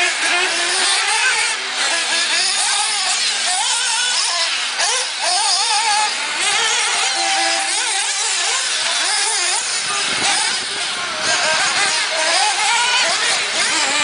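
Several radio-controlled off-road buggies running laps on a dirt track, their motors revving up and down in an overlapping, constantly changing high-pitched whine.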